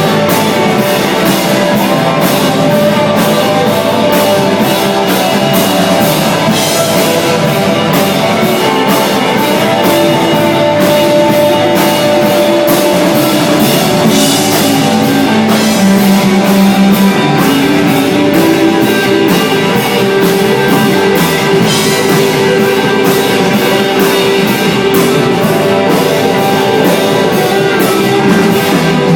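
Live desert-rock band playing an instrumental piece on electric guitar, two bass guitars and drum kit. Sustained guitar and bass notes ride over a steady drum beat with frequent cymbal hits.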